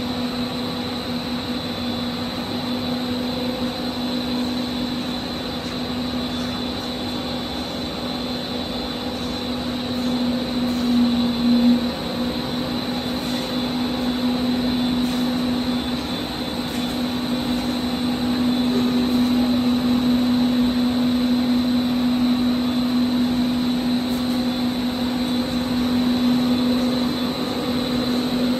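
Three-layer UPVC roof-sheet co-extrusion line running: a steady machinery drone with a constant low hum and a thin high whine, slightly louder in the second half.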